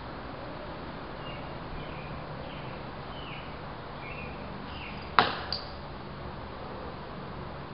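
A pitched ball striking its target with one sharp smack about five seconds in, followed a moment later by a fainter second knock. Several short bird chirps come before it.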